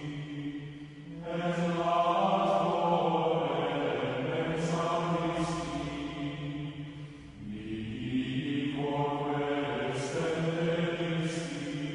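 Background music of low voices chanting in a slow plainchant style, in long held phrases with brief breaks between them.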